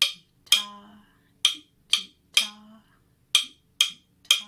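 Wooden drumsticks tapped in a slow, repeating rhythm: groups of three sharp clicks about two seconds apart, the third stroke of each group ringing with a low tone. It is a largo rhythm pattern played for echo-copying.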